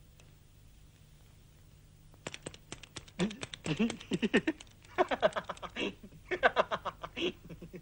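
A man chuckling and laughing softly to himself in several short bursts. A handful of light clicks come just before, about two seconds in.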